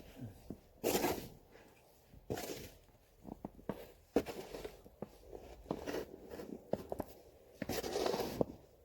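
Snow being shoveled: a shovel scraping and scooping through snow in repeated strokes, about one every one to two seconds, the longest and loudest near the end, with light crunching and knocks between.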